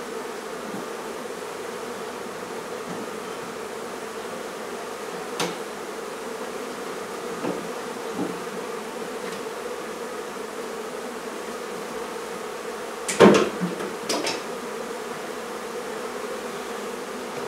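A mass of honey bees buzzing in a steady drone around an opened hive. A few scattered knocks come in, and a quick cluster of sharp knocks about two-thirds of the way through is the loudest sound.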